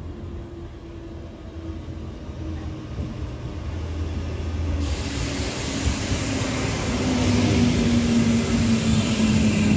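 RER C Z2N double-deck electric train running into the station and past at the platform edge, growing steadily louder. A motor whine falls slowly in pitch, and about five seconds in a rush of wheel and air noise sets in as the train reaches the platform.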